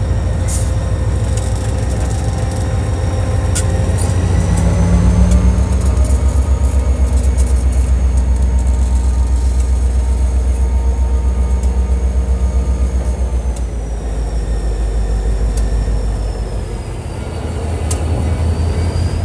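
Southern Railway diesel locomotive No. 2601 passing close at low speed, its diesel engine running with a low throb, a steady high whine above it and occasional sharp clicks. Near the end the passenger car's wheels roll by on the rails.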